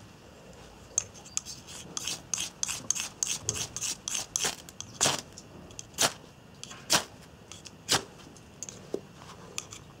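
Ferrocerium fire-steel rod scraped again and again with a striker, throwing sparks onto paper tinder. A run of quick rasping strokes is followed, in the second half, by single harder strikes about once a second.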